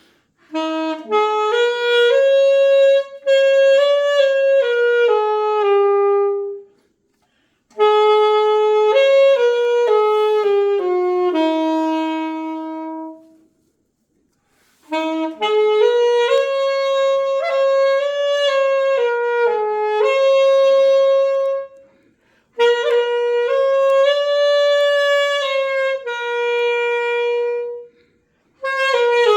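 Unaccompanied saxophone playing a song melody in four long phrases, with short breaks for breath between them.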